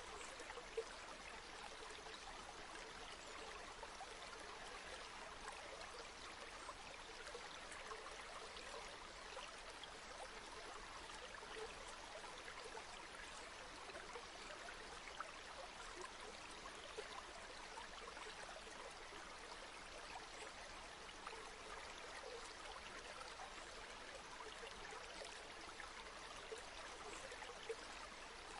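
Flowing river water: a faint, steady rush and trickle, with a few brief ticks of splashing.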